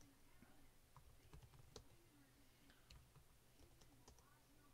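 Faint, irregular keystrokes on a computer keyboard, a scattering of separate taps at a very low level.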